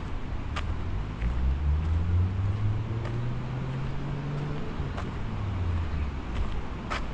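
A car going by on the street, its low engine note rising in pitch over a few seconds and dying away about six seconds in, over steady traffic noise. A few light clicks are heard along with it.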